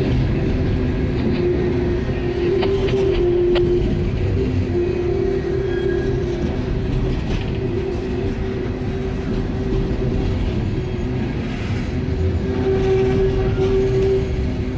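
Empty open hopper cars of a freight train rolling past at close range: a steady rumble of steel wheels on rail, with a humming tone that swells and fades several times and a few light clicks.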